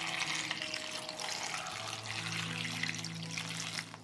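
Water pouring steadily into a bowl of washed strawberries to soak them, stopping just before the end.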